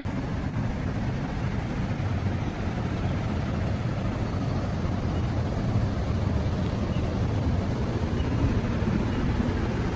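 Steady low rumble of outdoor background noise, heaviest in the bass and with no distinct events standing out.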